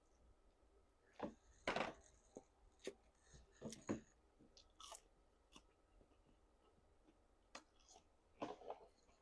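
A person chewing and smacking food close to the microphone, in short irregular bouts: the loudest about two seconds in, a lull after the middle, and another cluster near the end.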